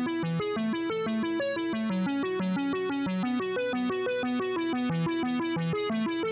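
Background music: a quick, repeating keyboard arpeggio of short, evenly spaced notes, about seven a second.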